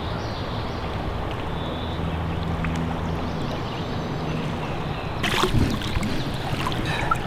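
Steady rush of flowing creek water around a wading angler; about five seconds in, a short burst of splashing as a hooked brown trout thrashes at the surface and is grabbed by hand.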